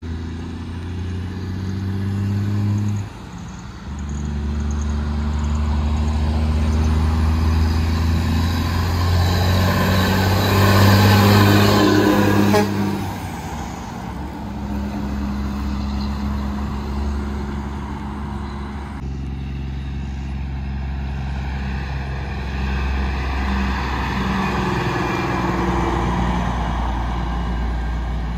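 Heavy diesel trucks and other traffic driving past, engines droning steadily. The loudest pass-by builds to a peak about twelve seconds in and breaks off suddenly, and the sound jumps abruptly several times.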